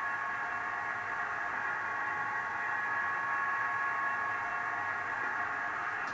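The fuel priming pump sound of a Class 37 diesel locomotive, played by a Zimo MX696 DCC sound decoder (Paul Chetter sound project) through the small speaker of an O gauge Heljan model. It is a steady hum with several held tones over a light hiss, and it stops right at the end as the function is switched off.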